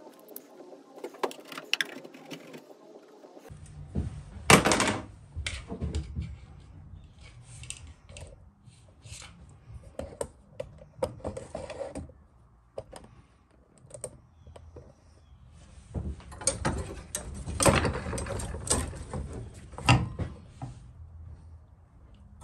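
Irregular clicks, clinks and knocks of small brass and copper scrap parts (expansion valves and tubing) being handled and worked with a knife and pliers on a wooden workbench. The loudest knocks come about four and a half seconds in and again around eighteen and twenty seconds in.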